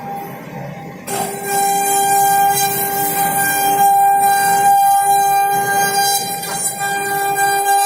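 INM2130 CNC router running a test cut, its spindle giving a steady high whine over the hiss of cutting. The sound is quieter for about the first second, then picks up again.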